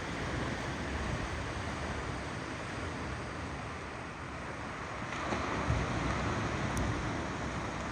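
Ocean waves rolling onto a shore: a continuous rushing wash of surf that swells louder about five seconds in as another wave breaks.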